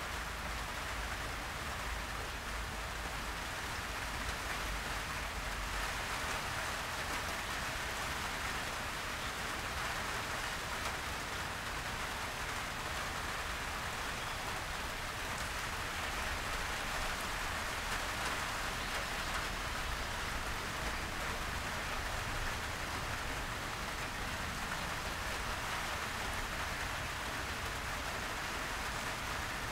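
Heavy rain falling steadily on leafy foliage: an even, unbroken wash of drops with a low rumble underneath.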